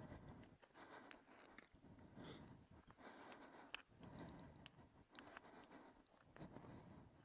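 Faint handling sounds of rigging a winch: a winch hook clicking and clinking against a nylon tree strap in gloved hands, with rustling and scuffing. One sharp metallic clink about a second in.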